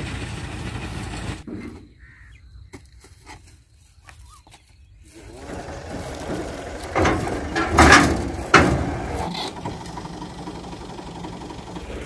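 Tractor-driven wheat thresher and tractor engine running in a steady mechanical drone. It drops much quieter for a few seconds about two seconds in, then comes back with three loud knocks in the middle.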